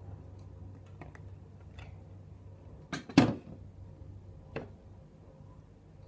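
A clear plastic tumbler being handled and set down on a hard surface: two sharp knocks close together about three seconds in, the second the loudest, then a softer knock a second and a half later.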